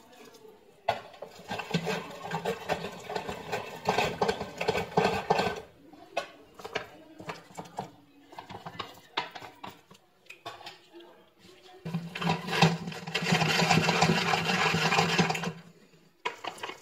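Hand-cranked food mill turning, its blade scraping and grinding cooked potatoes and carrots through the perforated disc to purée them for soup. It goes in two bouts of quick scraping, about a second in and again past the middle, with a few light knocks between.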